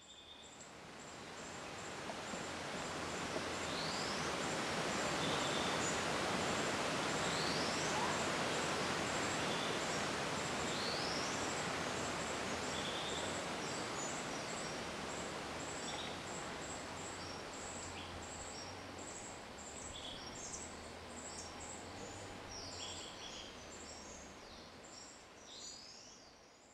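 Forest ambience: a steady rushing stream fades in and later slowly fades out. Over it a bird repeats a short rising call every few seconds, among brief high chirps.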